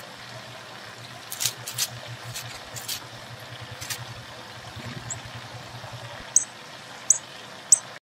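Sharp, high songbird chip notes: three clear ones near the end, about two-thirds of a second apart, with a few fainter high clicks earlier, over a steady background hiss.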